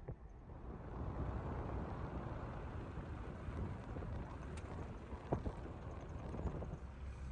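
Vehicle driving along a road: a steady rumble of road and wind noise, with two sharp knocks in the second half.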